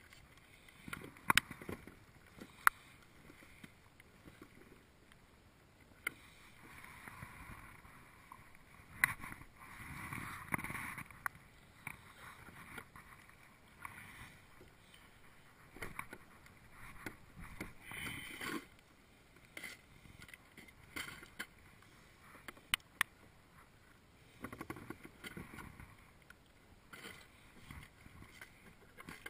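Knocks and clicks of gear against a plastic kayak, with stretches of water splashing and lapping along the hull.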